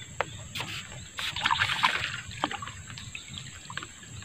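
Light splashing and rustling of floating grass at the water's surface as a snakehead takes a dangled bait, with a few sharp clicks and a burst of splashing about a second and a half in.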